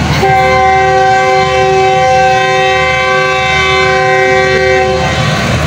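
Train horn sounding one long, steady blast of several notes at once, cutting off about five seconds in, over a low rumble.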